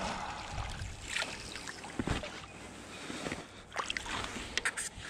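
Water splashing and sloshing as a hooked smallmouth bass thrashes at the surface while being lifted and grabbed by hand, with a cluster of sharp splashes near the end.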